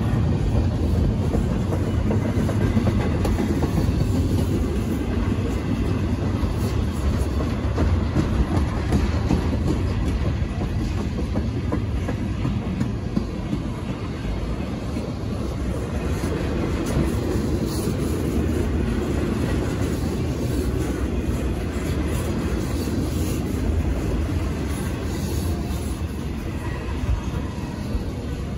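Empty intermodal double-stack well cars of a freight train rolling past, their steel wheels running steadily over the rails.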